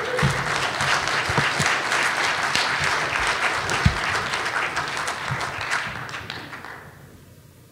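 Audience applauding, fading away about six to seven seconds in.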